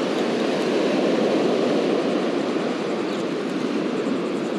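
Steady rush of surf breaking on the beach.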